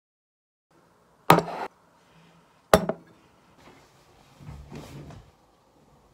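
Two sharp knocks about a second and a half apart, the first with a short rattling tail, then softer shuffling and rustling as someone moves in at a wooden table.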